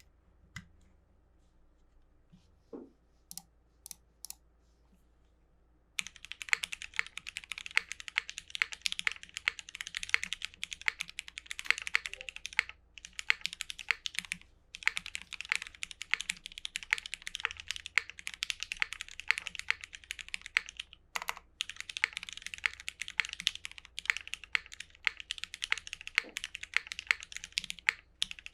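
Typing on a custom 60% mechanical keyboard with retooled Cherry MX Black linear switches, GMK keycaps and an aluminium flex-cut plate. After a few scattered key clicks, fast continuous typing starts about six seconds in, with a couple of brief pauses.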